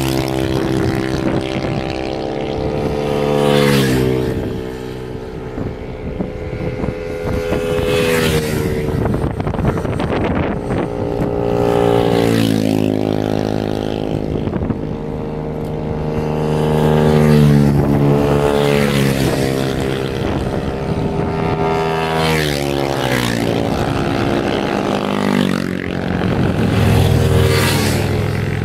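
Monkey-style mini motorcycles riding past one after another, each engine note dropping in pitch as it goes by, with a new pass every four to five seconds.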